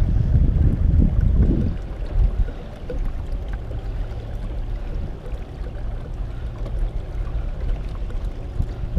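Seastream Angler 120 PD pedal-drive kayak under way: water gurgling along the hull with a low rumble, heaviest in the first couple of seconds, then settling to a steadier low hum.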